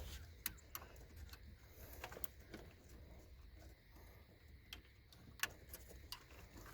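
Faint scattered clicks and light rattles of plastic wiring connectors and harness wires being handled and pushed together while fitting a car radio, a dozen or so small sharp ticks at uneven intervals.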